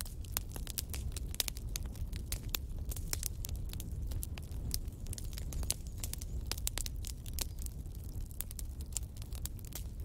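Fire burning in a fireplace, crackling with frequent irregular sharp pops over a low, steady rumble.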